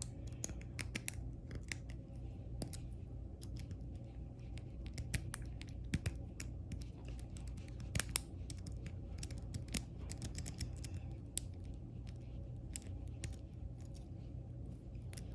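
Lock pick rake scraping and clicking against the pin tumblers inside a laminated steel padlock, with many quick, irregular small clicks as the rake is worked in and out of the keyway.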